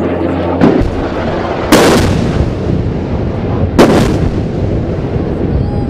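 Three blasts of bombs exploding, each with a short echoing tail: a smaller one just over half a second in, then two louder ones about two seconds apart.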